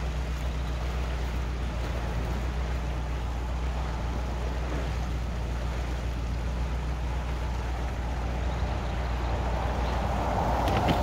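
Narrowboat engine idling steadily with a low hum, under the rushing of water pouring out through the lock paddles below the gates as the lock empties. The rushing grows louder near the end.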